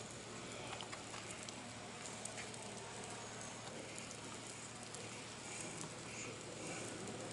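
Faint, steady background noise with scattered light taps and clicks.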